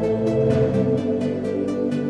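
Background music: held electronic synth chords over a light ticking beat, about four ticks a second.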